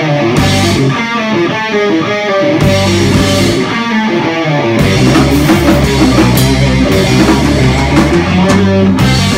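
Heavy rock band playing live: loud distorted electric guitar riffing with drums and cymbal crashes, and the full band with heavy bass kicking in about halfway through.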